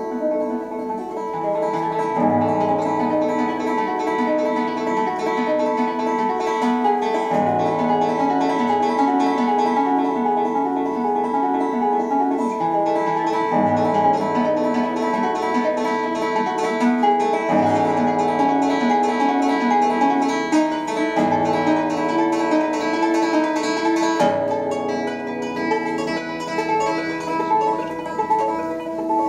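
Solo nylon-string acoustic guitar played fingerstyle: rippling picked arpeggios over a held bass note that shifts to a new one every few seconds.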